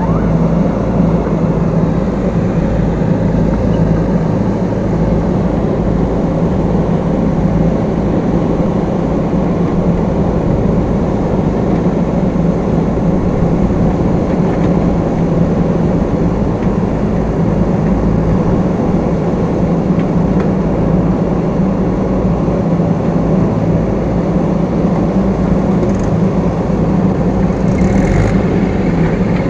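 Diesel engine of a backhoe loader or tractor at work, running with a steady low drone. A few faint clicks come near the end.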